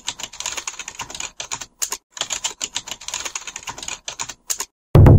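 Rapid computer-keyboard typing clicks, a sound effect for on-screen text being typed out letter by letter, with a brief pause about two seconds in. Just before the end a loud low hum cuts in suddenly.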